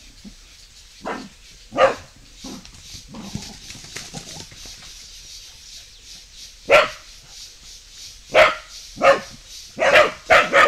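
Dogs barking in single sharp barks, a few seconds apart at first and then coming quicker near the end.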